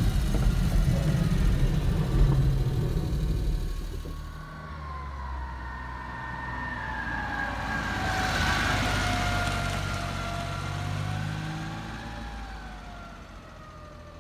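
1991 Suzuki Carry kei truck with its 657 cc F6A three-cylinder engine, being driven close by. The engine is loud for the first few seconds, then quieter, with a whine that rises and falls in pitch as the truck passes. It fades near the end as the truck drives away.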